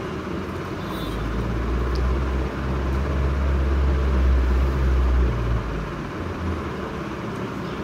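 A low rumble swells about a second in and dies away near six seconds, over a steady hiss.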